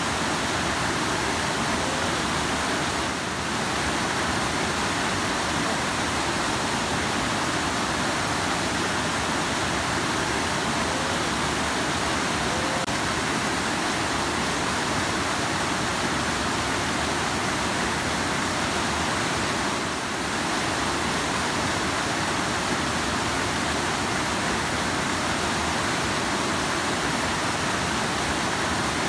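Rushing river: a steady, even rush of flowing water.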